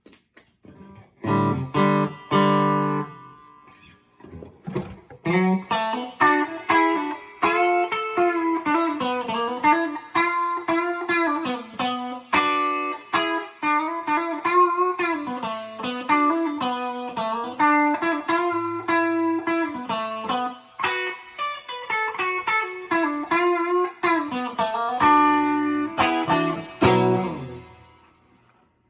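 Relic Telecaster electric guitar being played. A few chords open it, then a melodic single-note line with string bends follows, and it closes on chords that ring out and fade away.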